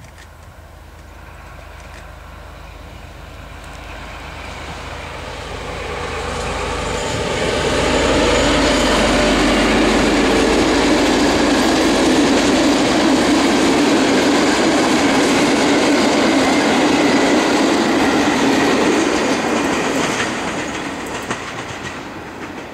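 An SU45 diesel locomotive and its passenger coaches pass at speed without stopping. The engine and the rumble of the wheels on the rails grow steadily louder as the train approaches, stay loud while the coaches go by, and fade in the last few seconds.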